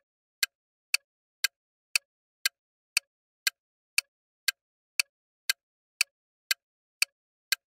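Countdown-timer clock-tick sound effect, ticking steadily about twice a second with silence between the ticks.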